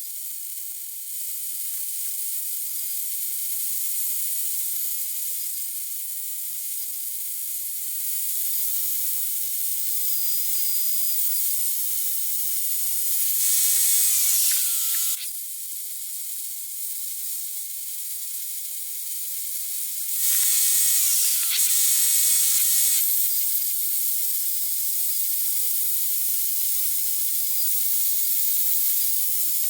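Power tool working concrete, running with a steady high buzz. It grows louder twice, about halfway and about two-thirds of the way through, each time with a falling whine.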